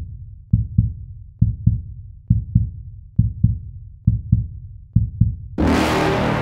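Heartbeat sound effect: a low double thump (lub-dub), repeating a little under once a second. About five and a half seconds in, a loud burst of hissing noise takes over, then cuts off sharply.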